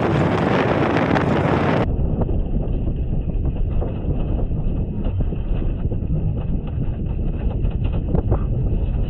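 Wind buffeting the microphone over a motorcycle's running engine and road noise while riding. About two seconds in, the sound changes abruptly, turning muffled and lower, with a steady deep rumble.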